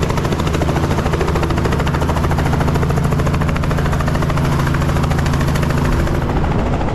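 Robinson R44 helicopter landing, its main rotor chopping rapidly over the steady drone of its piston engine. The higher part of the sound eases slightly about six seconds in as it settles on the pad.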